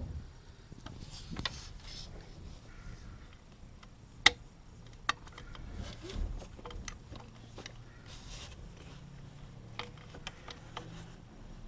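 Scattered clicks and light clatter of hand tools and parts being handled, with one sharp click about four seconds in and a smaller one about a second later, over a faint low hum.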